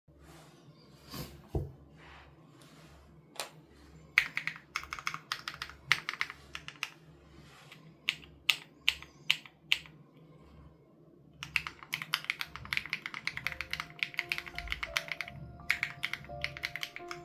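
Mechanical keyboard typing on an SPM AL87B with BSUN Raw switches, its sound-dampening foam removed. A few scattered keystrokes give way to bursts of typing from about four seconds in, then a short pause, then steady fast typing from about eleven seconds. Soft background music with a low regular pulse runs underneath.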